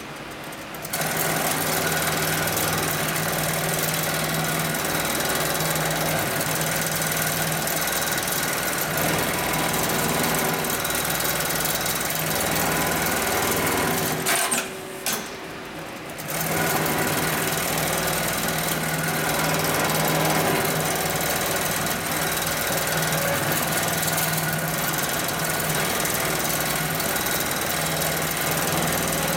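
Hightex MLK300-6040 automatic programmable pattern sewing machine running steadily as it stitches a shoe upper held in its template clamp. It stops briefly about fourteen seconds in, with a couple of clicks, then starts sewing again.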